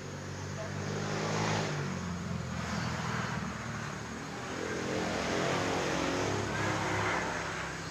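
Road traffic passing close by: engines humming as vehicles go past, swelling about a second and a half in and again past the middle.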